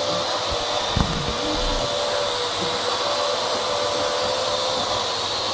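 Parrot AR.Drone quadcopter's four electric motors and propellers whirring steadily in flight, with a steady whine, and a single short thump about a second in.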